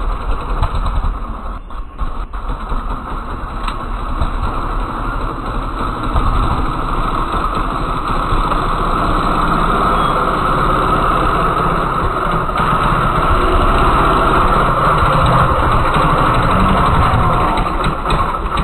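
Trials motorcycle engine running at low revs as the bike rides up a dirt trail. It grows louder about six seconds in as the bike comes close, then runs steadily near at hand.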